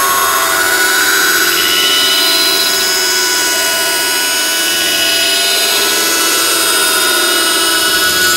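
Continuous loud rushing noise with thin tones drifting slowly up and down in pitch, steady throughout with no distinct knocks or clicks.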